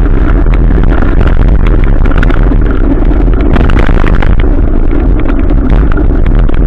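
Adventure motorcycle on the move: the engine runs steadily under heavy wind rumble on the microphone, with constant crackling hits.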